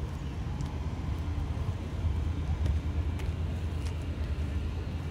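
Outdoor background noise: a steady low rumble with a few faint clicks scattered through it.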